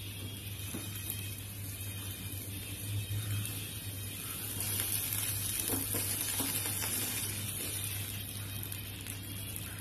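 Thin rice-and-coconut neer dosa batter sizzling on a hot tawa under an aluminium lid. The sizzle grows louder about halfway through as the lid is lifted off, with a few light knocks of the lid.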